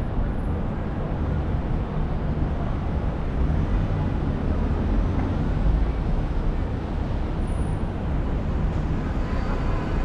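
Steady low rumble of a car driving through city traffic, with road and traffic noise throughout.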